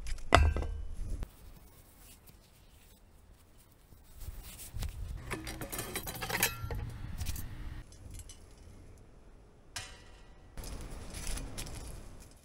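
Tools being handled: a sharp knock just after the start, then, after a quiet stretch, several seconds of light metallic rattling and clatter as a bow saw is taken from its hook. There is more scattered handling noise near the end.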